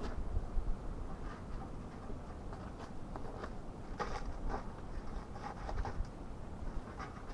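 Light handling noises: scattered short clicks, taps and rustles, a cluster of them about four seconds in, over a steady low rumble. No chainsaw is running.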